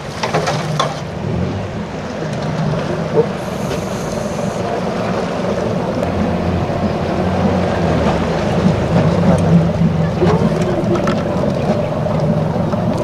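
A small boat's motor running steadily, with water and wind rushing past the hull. A lifebuoy ring splashes into the water right at the start.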